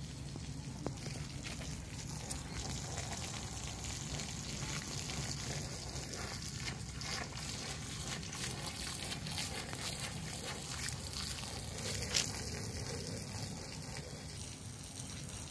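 A long-handled floor brush scrubbing a wet, soapy thick carpet, a steady wet swishing and fizzing hiss. One sharp knock about twelve seconds in.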